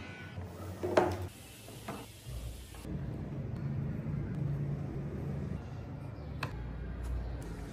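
Small wooden parts of a hand-carved model truck clicking and knocking as they are moved by hand: a sharp click about a second in, a softer one soon after, and another near the end.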